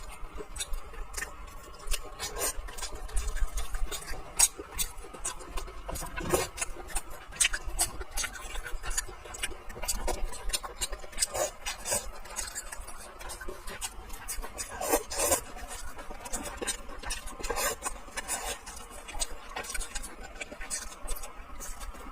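Someone eating braised fish: a run of irregular clicks, smacks and chewing noises with no steady rhythm.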